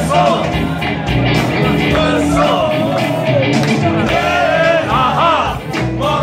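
Live rock band playing: a man singing lead over electric guitars, bass and drums.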